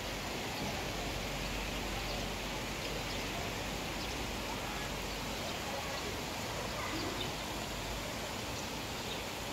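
Steady hiss of light rain, with faint scattered ticks of drops.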